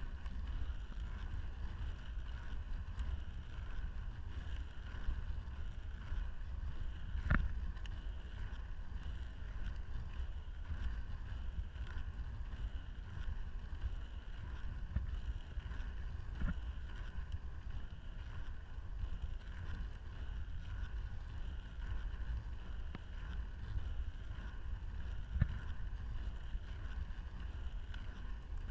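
Inline skate wheels rolling steadily over rough asphalt: a low rumble with a faint whir and wind on the microphone, broken by a few sharp clicks, the clearest about seven seconds in.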